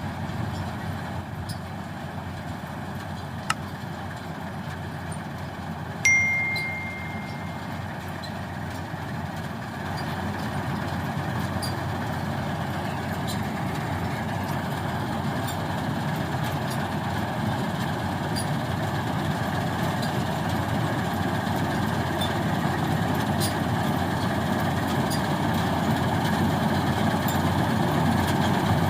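Dasmesh 3100 combine harvester running steadily while harvesting rice, slowly growing louder. About six seconds in there is a sharp hit followed by a short, high ringing tone.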